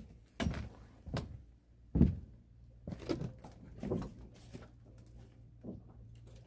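Irregular knocks and scuffs, about eight in a few seconds, from someone moving about on rocks and handling fishing rods and gear close to the microphone, with a faint steady hum underneath.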